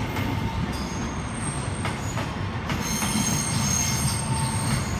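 Passenger train's wheels squealing as it rolls slowly through the station yard's tracks. Several high thin squeal tones come and go over a steady low rumble.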